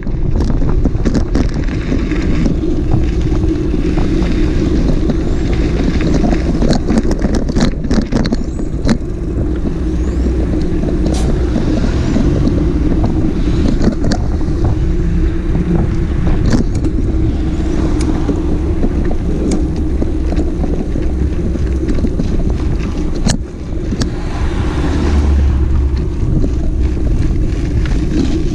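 Motorcycle engine running steadily while riding, with wind buffeting the microphone and occasional knocks.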